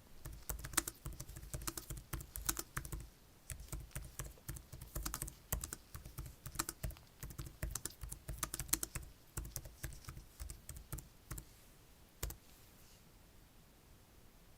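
Typing: a quick, irregular run of sharp taps and clicks that stops about twelve seconds in.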